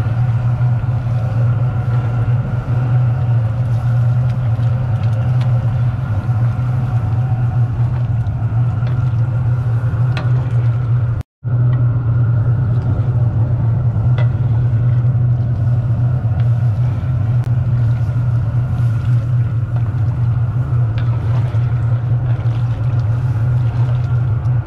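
Gas burners under a large stew pot running with a steady low rumble, with a split-second break near the middle.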